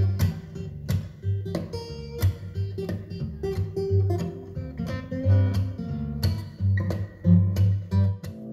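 Acoustic guitar music, strummed and plucked, with a strong bass note recurring regularly. It is played back through a small wooden bookshelf speaker driven by a 5-watt class A Amp Camp Amp, as a listening test of the amplifier.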